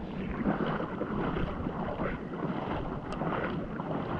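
Wind rushing and buffeting over the microphone in a steady, uneven rumble, with a faint short tick about three seconds in.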